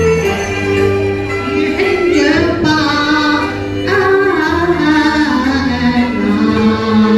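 Cantonese opera song sung by a woman in the pinghou natural-voice style, a gliding, ornamented melody over live instrumental accompaniment.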